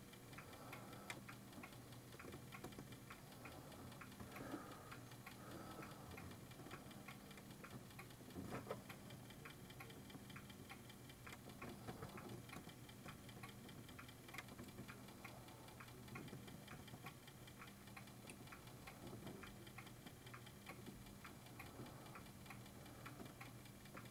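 Amiga floppy drive with a disk inside, running a continuous head calibration read: faint, regular ticking over a low steady hum while the head alignment is adjusted by turning the stepper motor by hand.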